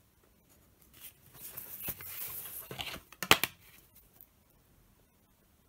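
Pencil scratching across paper for about two seconds, followed just past the middle by a short, sharp clatter, the loudest sound.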